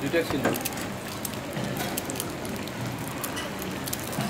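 Breakfast-buffet dining room background: a steady hiss with scattered light clinks of crockery and cutlery.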